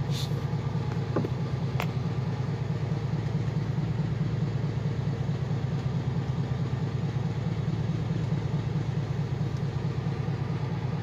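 Boat engine idling steadily with an even low hum, with a couple of light clicks in the first two seconds.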